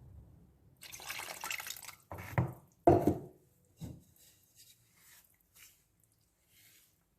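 Kitchen prep sounds: a liquid pouring into a bowl for about a second, then several sharp knocks, the loudest about three seconds in, followed by faint light clinks.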